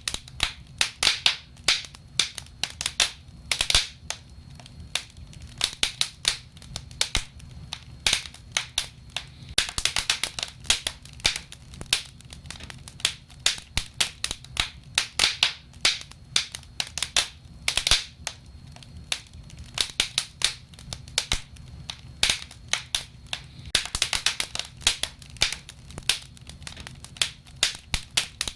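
Wood fire burning in a fireplace, the logs crackling and snapping with dense, irregular sharp pops that come in clusters.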